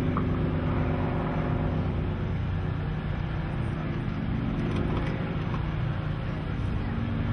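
Sukhoi Su-26 aerobatic plane's nine-cylinder M-14P radial engine droning steadily in flight.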